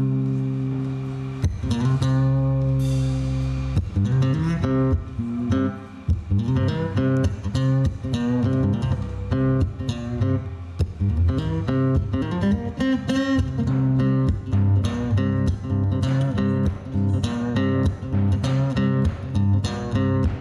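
Takamine acoustic guitar played through the stage sound system: a run of plucked notes over long, ringing low notes.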